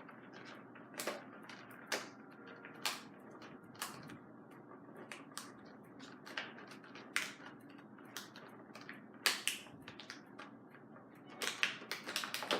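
Plastic and cardboard toy packaging being cut open from the back and handled: scattered sharp clicks and crackles, coming faster near the end.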